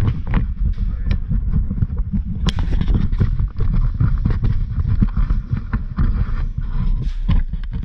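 Loud, rumbling wind and handling noise on a body-worn camera's microphone, with scattered sharp clicks and knocks.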